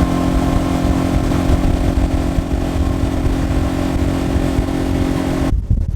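An engine running steadily, with a steady hum over a low, uneven rumble. About five and a half seconds in the higher hum drops away and only the low rumble is left.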